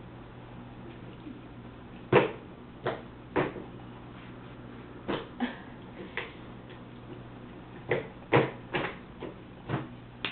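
Irregular knocks and taps of a plastic bowl and a child's hands on a plastic high-chair tray during finger feeding, about ten scattered hits, over a faint steady hum.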